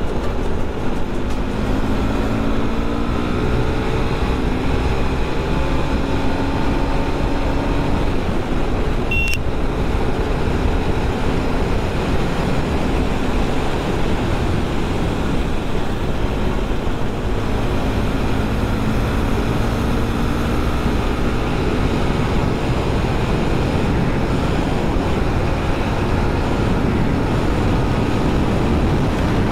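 Wind rushing over the camera microphone at highway speed, with a KTM RC390's single-cylinder engine running underneath, its pitch rising as it pulls twice during the ride.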